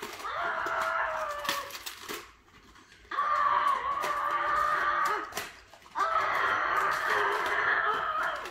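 A young boy roaring like a dinosaur with his own voice: three long, strained roars of about two seconds each.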